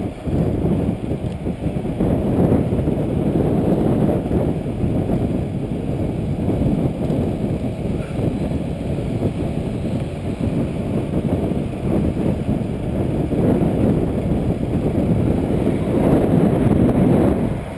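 Wind buffeting the microphone of a handlebar-mounted camera as a bicycle rides along a road: a steady low rushing that swells and eases.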